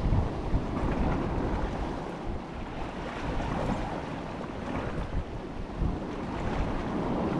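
Wind buffeting the microphone, with the wash of sea waves beneath it.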